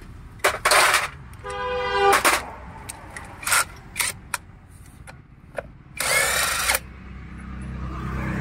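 Cordless impact wrench run in short bursts on a front suspension nut. There are bursts about half a second in, a short steady motor whine around two seconds in, and a longer burst around six seconds in, with a few metal clinks between.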